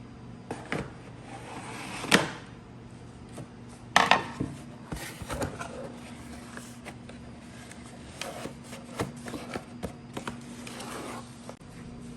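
Toy pizza pieces and a pizza box being handled: scattered clicks, knocks and short scrapes, with two louder knocks about two and four seconds in.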